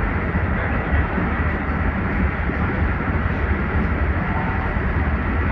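Amtrak Acela train running: a steady low rumble with a rushing hiss over it.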